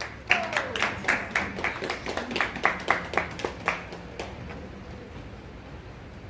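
A small group applauding, with sharp individual claps a few times a second that thin out and stop about four seconds in.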